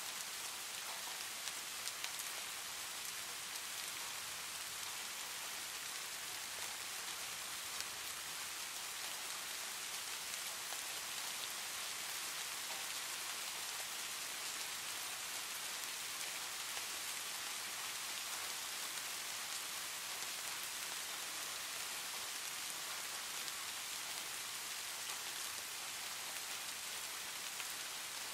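Steady rain: an even, bright hiss with faint, scattered drop ticks.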